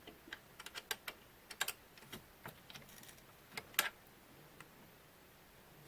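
Scattered light clicks and taps, irregular and sometimes two or three in quick succession, from hand work with a tool while tightening the spindle mount on a CNC router.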